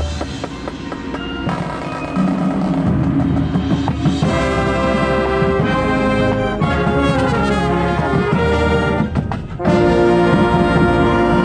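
Marching band winds playing held chords, brass to the fore. The music builds, breaks off briefly near the end, then comes back louder on a full held chord.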